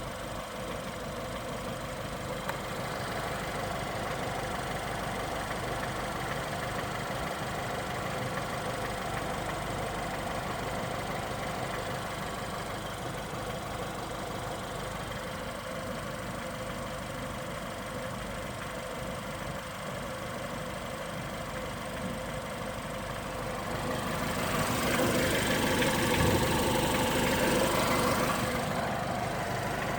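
2015 Ford Fiesta ST's 1.6-litre EcoBoost turbo four-cylinder idling, with a heavier knock that comes at no regular rhythm over the normal engine noise; the owner does not know its cause in a nearly new car. The engine sound grows louder for several seconds near the end.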